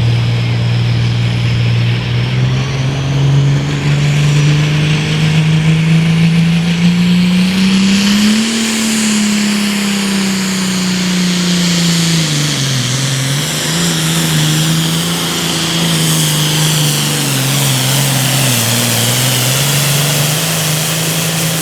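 John Deere Super Farm pulling tractor's diesel engine running hard under the load of the weight-transfer sled, with a high turbo whine above it. The revs climb steadily for about the first eight seconds, then fall and rise and fall again through the rest of the run.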